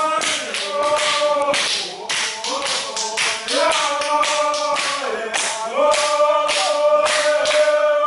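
Group of dancers singing a chant together in held notes, while stamping feet beat a steady rhythm about every half second. This is a Tanna ceremonial dance song.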